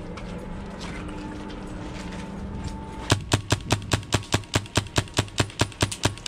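An airsoft gun firing a rapid string of evenly spaced shots, about six a second, starting about three seconds in and lasting about three seconds, over a faint steady hum.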